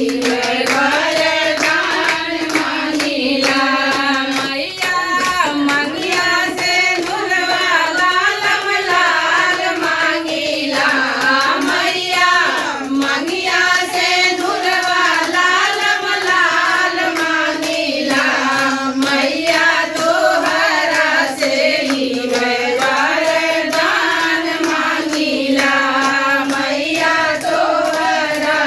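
Group of women singing an Avsan Maiya devotional folk song together in unison, keeping time with steady hand claps.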